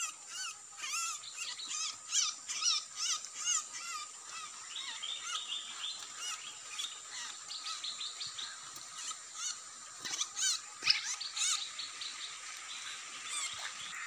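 Small birds chirping: a series of short, sharp high chirps, several a second, thickening into a rapid run in the middle, with one louder call about ten seconds in. A steady high-pitched ringing runs underneath.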